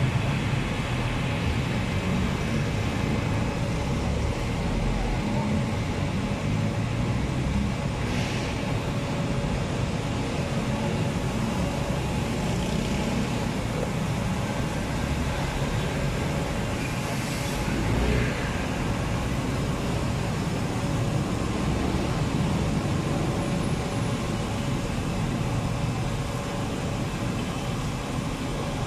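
Steady street traffic noise, a continuous low rumble with no distinct events.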